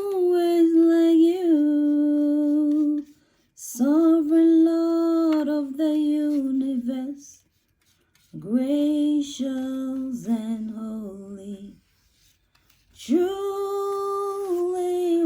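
A woman singing a hymn unaccompanied, in four slow phrases of long held notes with short pauses between them.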